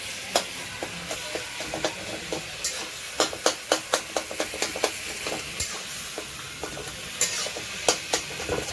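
Chicken frying and sizzling in a pan, with a steady hiss, while a utensil stirs it and clicks and scrapes against the pan at an irregular pace, most busily a few seconds in.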